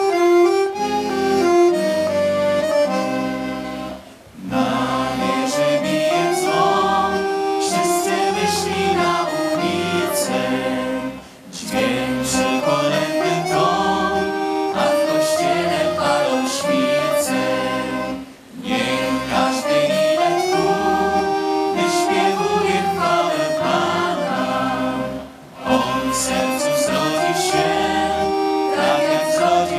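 Girls' vocal ensemble singing a Polish Christmas song with instrumental accompaniment, including violin. The song moves in phrases of about seven seconds, each followed by a short breath pause.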